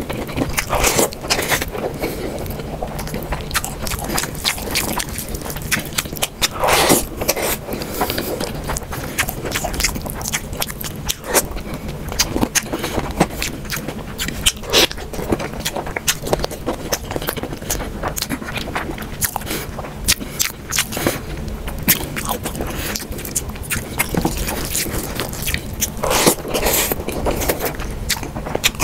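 Close-miked eating sounds: rice and curry being squished and mixed by hand and chewed with the mouth open, giving wet squelches and irregular clicks and smacks throughout, with a few louder ones about seven seconds in and near the end.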